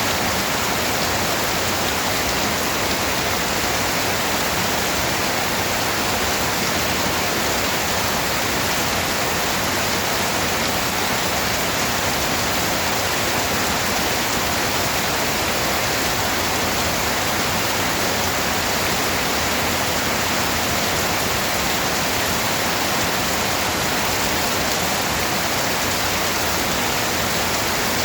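Steady heavy rain, a dense even hiss with no distinct drops or changes.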